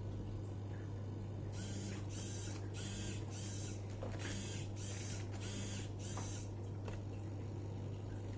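A small mechanism whirring in seven short bursts, grouped three and four with a brief pause between, over a steady low hum.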